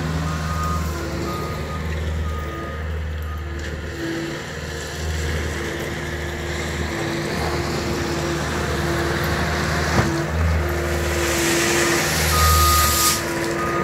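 Cat compact track loader's diesel engine running, rising and falling with the work, its reversing alarm beeping at about two beeps a second at the start and again near the end. Near the end gravel rushes out of the tipped bucket, and there is a single sharp knock about ten seconds in.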